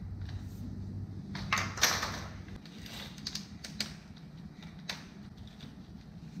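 Hand work on a long thin rod: a scrape about two seconds in, then a few sharp separate clicks and knocks, over a low hum that fades out partway through.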